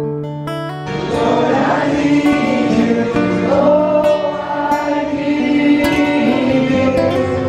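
Music: acoustic guitar, joined about a second in by a group of voices singing, with the guitar carrying on alone again near the end.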